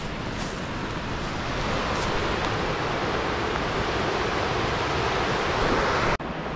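Steady rushing of wind mixed with surf breaking at the foot of a sea cliff, growing slightly louder and then breaking off abruptly near the end.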